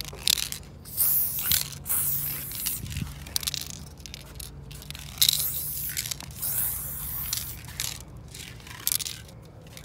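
Aerosol spray-paint can hissing in a series of short bursts, roughly one a second, as paint is sprayed onto a concrete wall.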